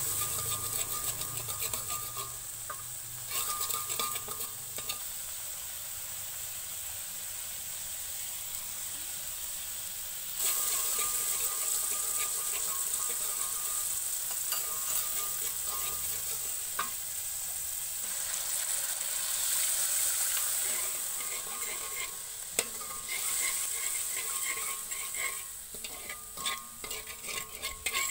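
Soy sauce and oyster sauce sizzling in hot oil in a wok while a metal spatula stirs and scrapes the pan. The sizzle grows louder about ten seconds in, and the spatula scrapes come thicker near the end.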